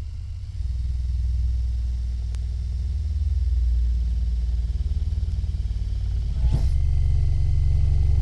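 Cordless drill with a twist bit boring into a van's ribbed sheet-steel roof, running steadily under load with a deep rumble through the roof panel. A brief high squeal comes about six and a half seconds in.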